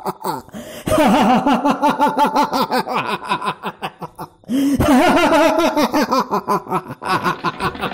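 A man's long, theatrical villain's laugh, the demon Mahishasura's laugh, in rapid ha-ha-ha pulses. It comes in two long bouts, one starting about a second in and the other about five seconds in.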